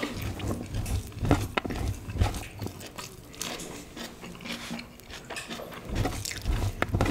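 Close-up eating sounds from people eating with their hands: chewing and wet mouth smacks, with a scatter of short sharp clicks.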